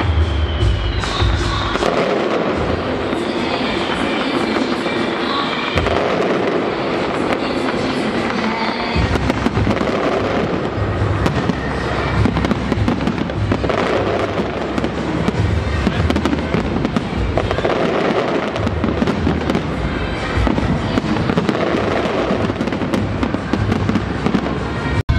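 A large fireworks display going off in a dense, continuous barrage: rapid crackles and bangs, with deeper booms every few seconds.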